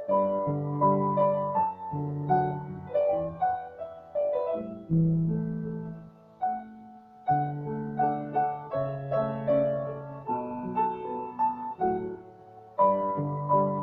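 A piece in two parts played on piano with a synthesizer keyboard: a slow melody of single struck notes over a line of low bass notes, each note sounding and then fading.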